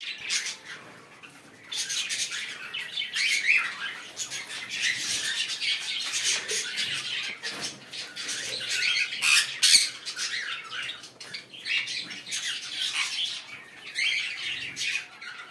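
Sun conure squawking: repeated harsh, high-pitched calls, with a short lull near the start, then coming almost without pause.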